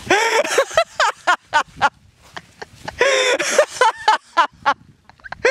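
Excited human voices: loud, high-pitched shouting and bursts of laughter in short repeated pulses.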